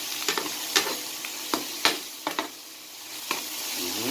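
Food frying in a pan with a steady sizzling hiss, and a metal utensil clicking against the pan as the food is stirred, about nine sharp clicks spread through.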